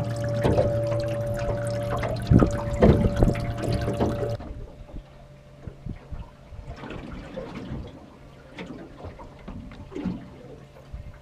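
Water sloshing and splashing in a boat's live well as a hand moves trout around, over a steady hum. About four seconds in it cuts off sharply, leaving only quieter faint knocks and water sounds.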